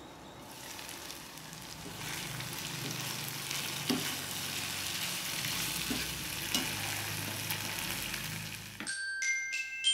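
Cauliflower fry sizzling in a pan of hot oil and masala, a steady hiss with a few sharp clicks. It cuts off about nine seconds in, and bell-like glockenspiel chimes start.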